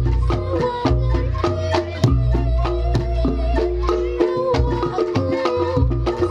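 Reog Ponorogo gamelan music: quick drum strokes over ringing struck bronze tones and deep gong notes, with a wavering melody line above.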